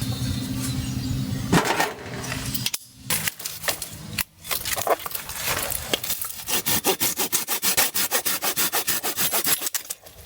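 Silky Gomboy folding hand saw cutting through firewood, with fast, even back-and-forth strokes in the second half after some handling and rustling.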